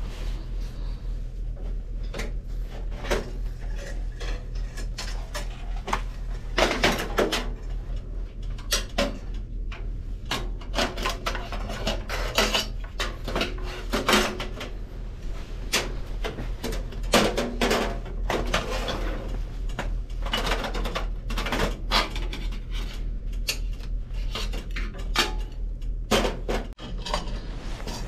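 Irregular metallic clinks, knocks and rattles as stainless-steel panels, frame pieces and pipe fittings of a La Marzocco GB5 espresso machine are handled and taken apart, over a steady low hum.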